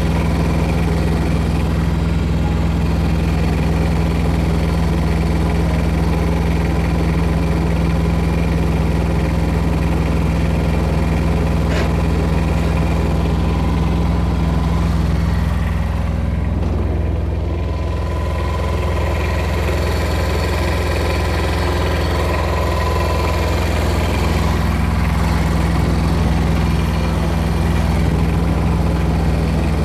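An engine running steadily at a low, even speed, easing off briefly about halfway through.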